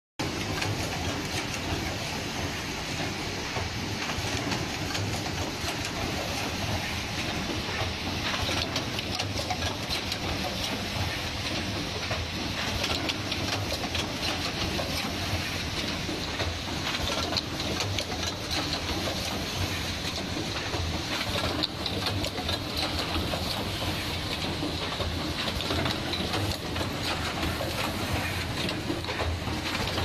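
Automatic power-cord plug crimping and insertion machine running: a steady mechanical clatter of rapid clicks from its pneumatic crimping stations and indexing conveyor.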